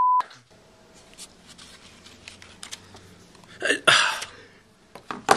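Censor bleep: a short steady beep of about a quarter second, cutting off a swear word. Then faint room tone with small handling clicks and a brief louder rustle a little under four seconds in.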